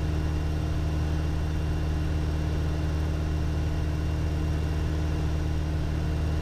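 Piper Warrior's four-cylinder Lycoming engine and propeller droning steadily in flight, with an even, unchanging pitch.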